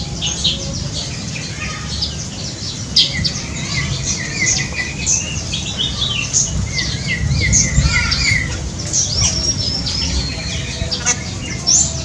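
Many birds in an aviary calling at once: a dense mix of short chirps, whistles and squawks, some rising and falling, with no pause, over a steady low rumble.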